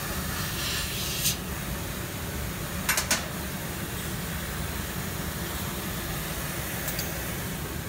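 Thin stainless steel sheet clinking against the steel slats of a laser cutter bed as it is handled and lifted: one sharp clink about a second in, a quick run of three about three seconds in, and a faint one near the end, over steady machine noise.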